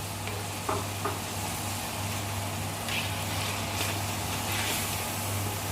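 Chickpeas, onions and spices frying in oil in a cooking pot, sizzling steadily as they are stirred, with two clicks of the spoon about a second in and louder sizzling in the second half. A steady low hum runs underneath, and the sound cuts off suddenly at the end.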